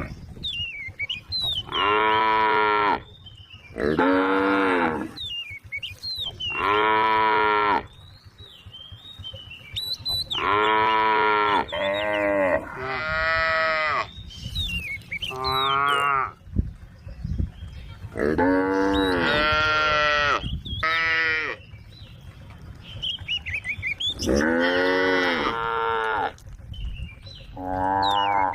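Cows mooing over and over, about a dozen calls of roughly a second each, every one rising and falling in pitch. Some calls come in quick succession or overlap, as from more than one animal.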